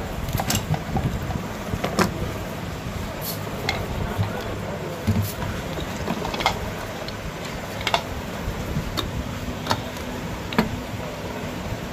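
Hand tools clicking and tapping against the metal base and stem of a table fan being dismantled: about ten sharp, brief clicks at irregular intervals, over a steady low hum in the background.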